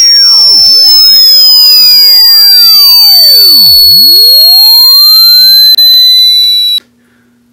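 A piercing, alarm-like electronic tone blasted at full volume. It slides slowly down in pitch under a tangle of rising and falling whistling sweeps, then cuts off abruptly near the end, leaving only a faint low hum.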